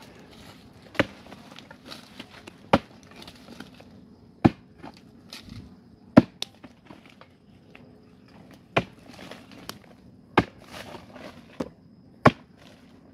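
Digging tool striking into the hard earth of a termite mound: about seven sharp, heavy blows, one every second and a half to two seconds, with lighter knocks and loose soil rustling in between.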